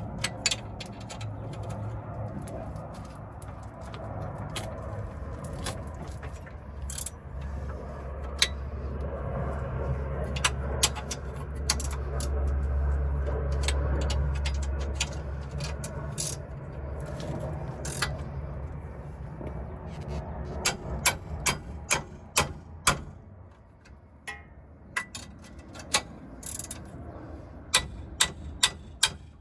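Metal hand tools clinking and clanking irregularly against steel suspension parts while a new steering knuckle is being fastened, over a low hum that swells in the middle and fades about three-quarters of the way through.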